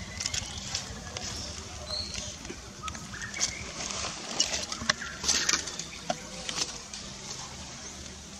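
Outdoor ambience: scattered short chirps and small clicks over a steady low rumble.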